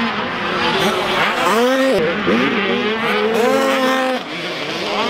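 Motocross bikes racing, their engines revving up and down as the riders accelerate, shift and go over a jump, with a sharp climb and drop in pitch about a second and a half in and another climb near the middle.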